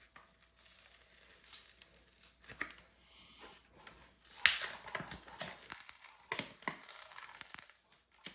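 Plastic packaging crinkling in irregular bursts as it is handled and pulled off a laptop, the loudest burst about halfway through.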